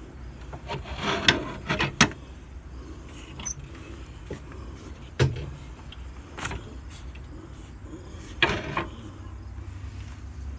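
Metal cockpit hardware being handled on a steel sailboat: a few sharp clunks and short rattles of a stainless handle and lever knocking against their fittings, over a steady low rumble.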